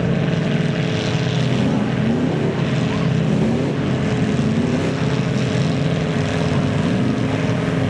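Big-tyred mud truck's engine running hard through a mud hole, revving up in several short rising surges.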